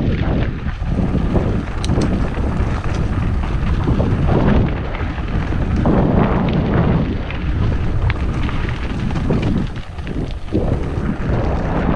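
Wind buffeting the camera's microphone over the rumble of a mountain bike's tyres on a dirt singletrack, with scattered short clicks and rattles.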